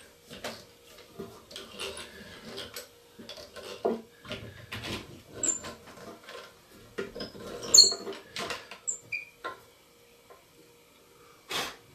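Hand-cranked eggbeater drill boring into walnut: the gears click and squeak in uneven spurts over a faint steady whine. The drilling stops about two-thirds of the way through, followed by a few light taps and a sharp click near the end.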